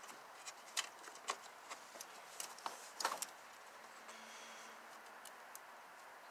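Faint, irregular small clicks and handling noise from hands working a rubber transmission breather hose and its zip tie into place, most of the clicks in the first three seconds.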